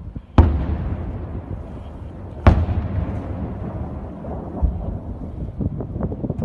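Two distant explosions from a missile interception in the night sky, about two seconds apart. Each is a sharp boom followed by a low rolling rumble that slowly fades.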